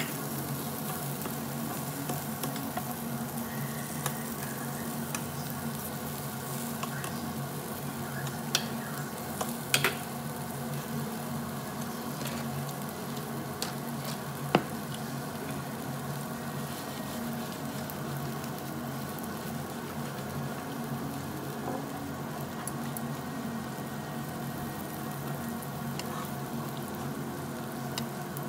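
Marinated duck meat and garlic cloves sizzling steadily on a hot ridged tabletop grill, with a few sharp clicks around the middle.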